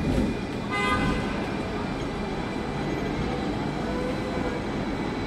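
Steady background rumble and hiss, with a short pitched toot like a horn about a second in.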